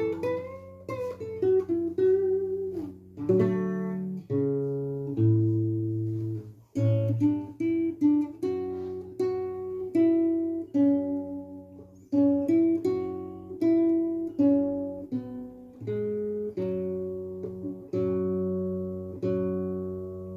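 Nylon-string classical guitar played by hand: a slow run of plucked single notes and chords, each ringing out and fading before the next.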